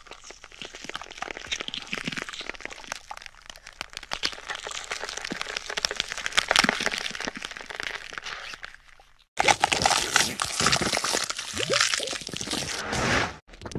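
Bone-cracking sound effect: dense, rapid crackling and crunching. It stops for a moment about nine seconds in, then resumes louder.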